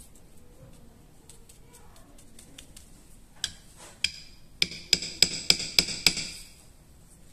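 Small steel pistol parts clinking as they are handled in a plastic parts tray. Faint ticks come first, then two sharp clicks, then a quick run of about seven sharp metallic clinks with a ringing note over about a second and a half.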